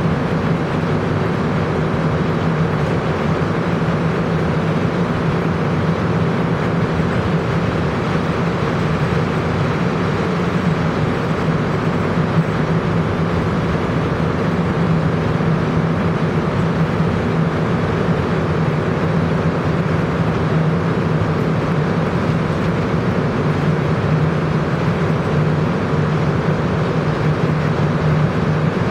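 Montreal Metro rubber-tyred train running through the tunnel, heard from inside the car: a steady, loud rumble with a constant hum that holds at an even level.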